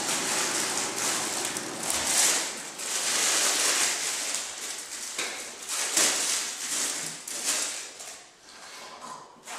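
Thin plastic packaging crinkling and rustling in irregular bursts as it is handled, dying down near the end.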